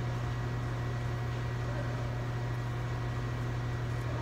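Steady low mechanical hum with an even hiss, unchanging throughout, like a fan or ventilation unit running.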